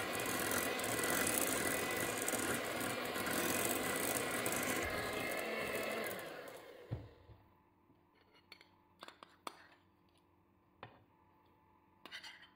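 Moulinex electric hand mixer running steadily with a motor whine, its beaters whipping butter cream with boiled condensed milk in a glass bowl. About six and a half seconds in it is switched off and winds down. A few light clinks follow, from a spoon scooping condensed milk from a dish.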